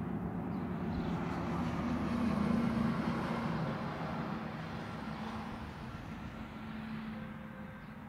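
Engine noise of a passing vehicle, swelling to its loudest about two and a half seconds in and then slowly fading.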